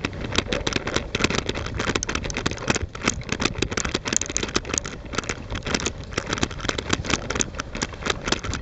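A dog-drawn rig running over a snow-covered trail: a steady rumble of the tyre and rig on the snow, with rapid, irregular crackling and rattling throughout.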